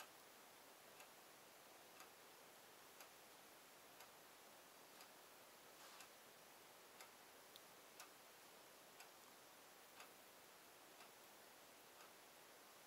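Faint, steady clock ticking, one tick a second, over near silence.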